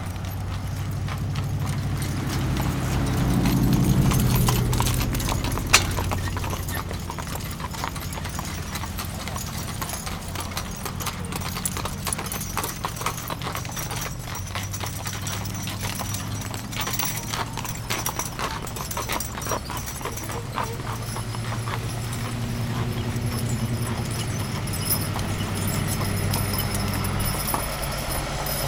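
Mules' hooves clip-clopping on a paved road as mule-drawn wagons walk past, many hoof strikes overlapping. A low vehicle drone runs under it, swelling about four seconds in and growing again near the end as a semi truck comes up behind the wagons.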